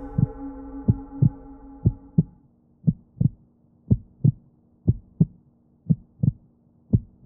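Heartbeat sound, double thumps in a lub-dub pattern about once a second, over a low drone that fades away in the first two or three seconds and leaves a faint steady hum.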